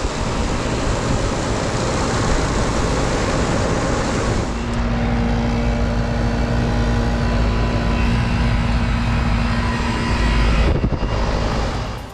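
Air conditioner running with loud, steady fan noise. A steady low hum joins about four and a half seconds in and cuts out shortly before the end.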